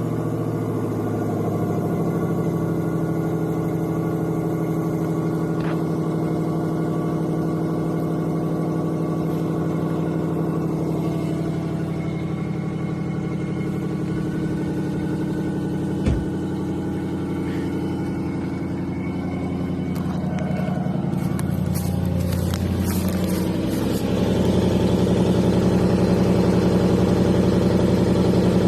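1994 Lexus LS400's 1UZ-FE V8 idling steadily, heard through its exhaust, with a single knock about 16 seconds in. Around 20 seconds in the engine note wavers, and from about 24 seconds on it runs louder.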